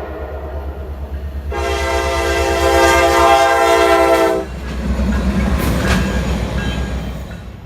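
Diesel locomotive air horn sounding one long chord of several notes for about three seconds, starting about a second and a half in and cutting off sharply. It is followed by the rumble and rail clatter of the passing train, over a steady low engine drone.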